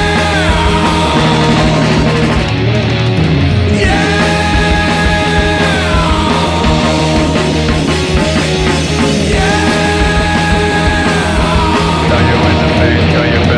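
Rock music with a held note that slides down in pitch, recurring about every five seconds over a dense, steady backing.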